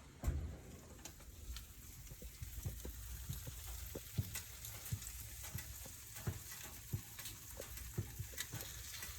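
Halibut fillets frying in a pan: a steady sizzle of hot oil with many small, irregular pops and crackles.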